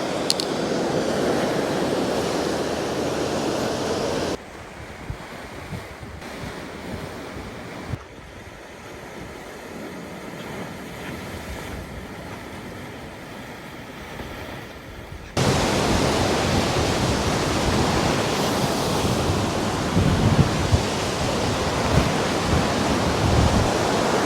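Steady rushing of wind and sea surf. It drops suddenly to a quieter hiss about four seconds in and comes back up just as suddenly about fifteen seconds in.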